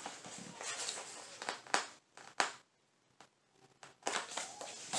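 Paper and card rustling and crinkling as pages are handled, with two sharp clicks about two seconds in, a short quiet gap, then more rustling.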